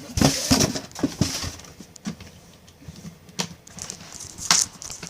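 Irregular knocks and clicks from handling a suitcase-style portable record player, with several sharper knocks in the first second and two more at about three and a half and four and a half seconds in.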